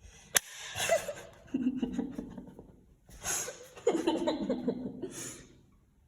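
A single sharp click about half a second in, then a person's stifled, breathy laughter and snickering in two spells.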